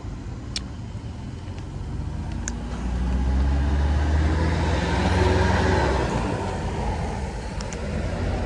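Road vehicle driving past, its engine hum and road noise building to a peak around the middle and fading toward the end.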